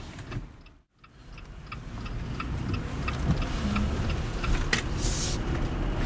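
Steady road noise inside a car driving on a wet road, with a light regular ticking about three times a second. The sound drops out briefly about a second in, and a short hiss comes near the end.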